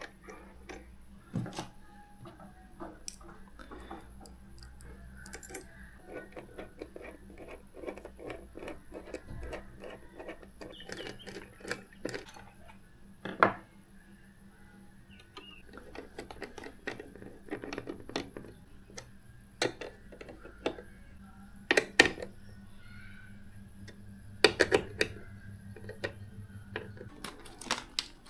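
Light clicks, taps and clatter of small hard parts being handled while a PC is assembled, with sharper knocks about 13 seconds in, around 22 seconds, and a cluster of them near the end.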